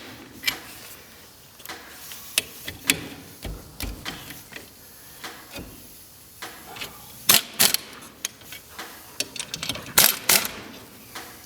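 Irregular metallic clicks and clanks of hand tools working on wheel spacer hardware, with a few louder sharp knocks about seven and ten seconds in.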